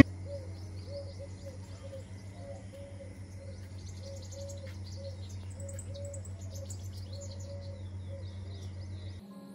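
Morning birdsong: many birds chirping in quick high twitters, with a lower note repeating two or three times a second. A low steady hum runs underneath and stops near the end.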